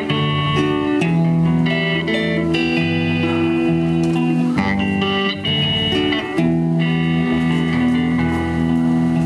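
A small live rock band playing an instrumental stretch on two electric guitars and an electric bass through small amplifiers, the notes ringing out and held.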